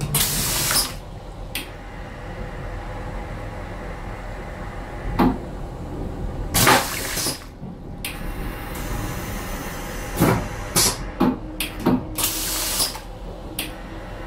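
Flush cycle of a stainless-steel train vacuum toilet: a very short rinse of water and several short, harsh suction whooshes with knocks, the vacuum suction really loud. A steady low hum of the train runs underneath.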